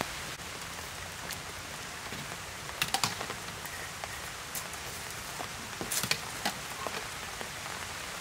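Light clicks and taps as boiled vegetables and a glass bowl are handled on a woven bamboo tray, a small cluster about three seconds in and another about six seconds in, over a steady hiss.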